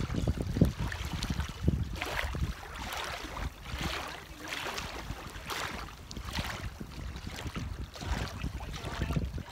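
Small wind-driven waves lapping at the lake's edge, a swish about once a second, with wind buffeting the microphone as a low rumble.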